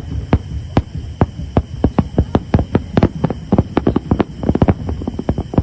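A dense, irregular barrage of fireworks bursting: sharp bangs with low booms several times a second, packing closer together about four seconds in.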